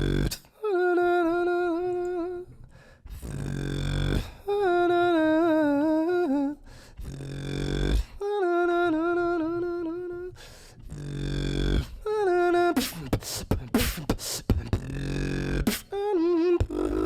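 Solo beatboxing: long held, slightly wavering vocal tones alternate with deep bass sounds, then quick percussive clicks and kick-like hits come in over the last few seconds.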